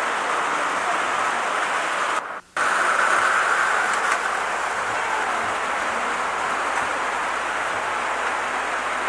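Steady rushing noise of model trains running on a large layout, picked up by an old VHS camcorder's microphone along with its tape hiss. The sound drops out briefly about two and a half seconds in at a recording break, then comes back slightly louder.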